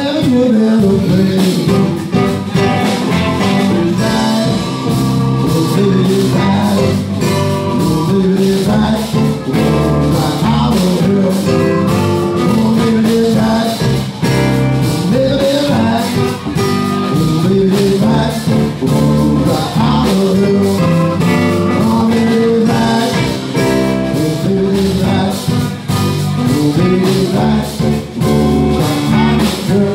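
Live rock-and-roll band: a man singing while playing an electric keyboard, backed by electric guitar and a drum kit.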